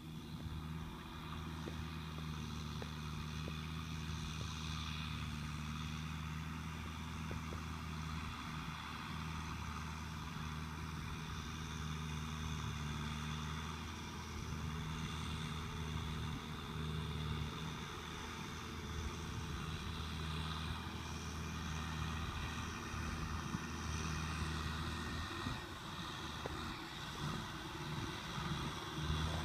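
Farm tractor engine running steadily as the tractor drags a rear-mounted tiller through soft, ploughed soil, heard from across the field: a low, even hum that wavers slightly in pitch now and then.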